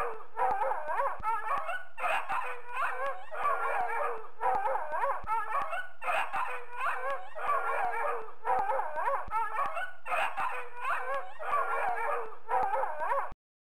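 A dog barking over and over in an even, fast series of loud barks, cutting off abruptly near the end.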